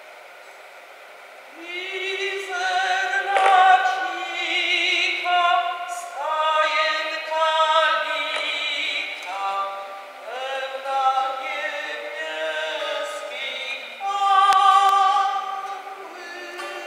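Singing of a slow Polish Christmas carol with acoustic guitar, starting about a second and a half in, in long held notes that waver in pitch.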